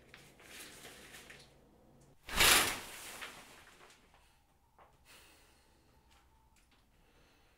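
A shower curtain is yanked open along its rod, a loud quick swish about two seconds in, after softer rustling as the curtain is gripped.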